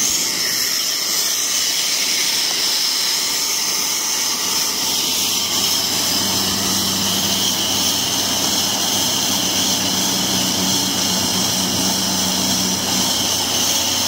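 Corn-stalk silage round baler running steadily: a loud, even machine noise with a hissing upper edge, joined by a steady hum about six seconds in that drops out near the end.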